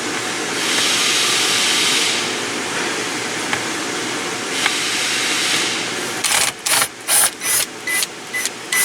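Power driver run in about eight short bursts over the last few seconds, backing out a screw of the lower steering-column panel. A steady hiss lies underneath.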